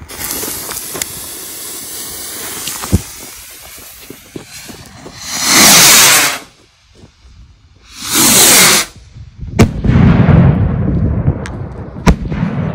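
Master Ballistic 2-inch shell rockets: two loud whooshing launches a couple of seconds apart, then a sharp bang of a bursting shell about ten seconds in, with a low rolling rumble after it, and another sharp crack near the end.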